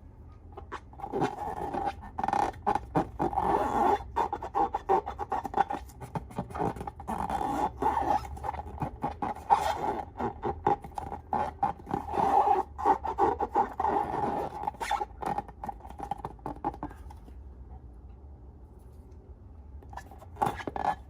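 Slime being squished and worked by hand, giving dense runs of sticky crackles and small pops; the handling eases off for a few seconds near the end, then starts again.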